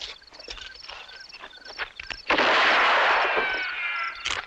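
Sound-art collage. Scattered clicks and short high chirps play at first. A little over two seconds in, a sudden loud blast of noise cuts in and lasts about two seconds, with a whine falling slowly in pitch like a bullet ricochet.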